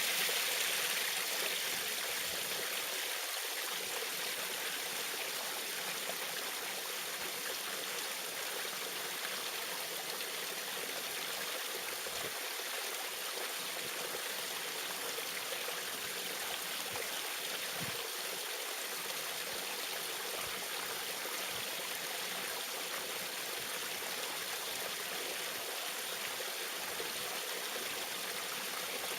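Small waterfall: water splashing and trickling in a steady, even rush.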